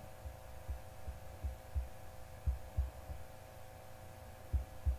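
Steady electrical hum with soft, irregular low thumps, about two or three a second, bunched with gaps between.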